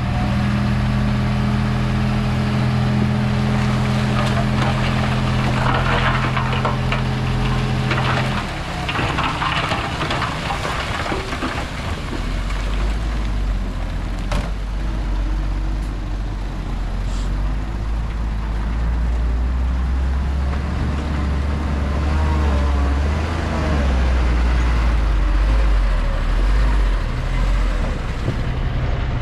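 Diesel engines of heavy earthmoving machinery running. A steady engine drone changes suddenly about eight seconds in, and a deeper, louder engine rumble builds from about twelve seconds on.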